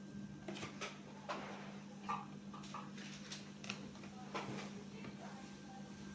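Light clicks and scrapes of kitchen utensils, about seven scattered short knocks, over a steady low hum.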